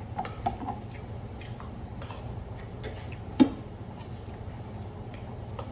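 Small plastic clicks and taps as the cap of a large plastic water bottle is opened and the bottle is handled and raised to drink, with one sharper knock about three and a half seconds in. A steady low hum underneath.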